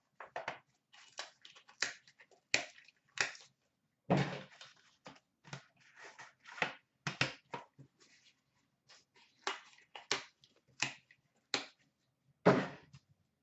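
A sealed box of trading cards being opened and its packaging handled: an irregular run of sharp crackles and rustles.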